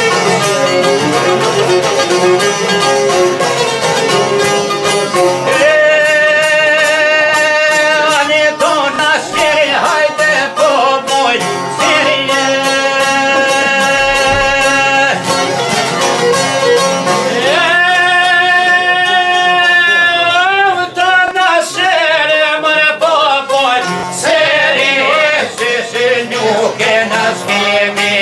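Albanian folk song played on long-necked plucked lutes of the çifteli and sharki kind, strummed in a fast steady pattern. About five seconds in, a man's voice joins, singing long held notes with wavering ornaments.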